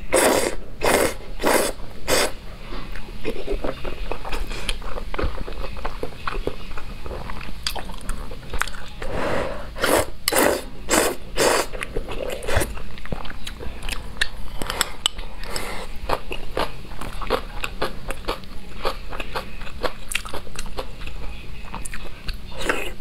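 Close-miked eating: a quick run of loud slurps as glass noodles are sucked in, and another run about ten seconds in, with wet chewing and biting of braised pork between them.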